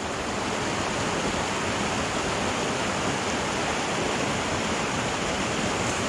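Small mountain stream cascading over boulders into a pool: a steady rush of falling water.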